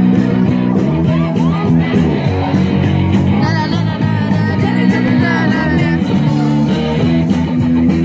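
A song playing: a singing voice with guitar and other instruments over steady bass notes.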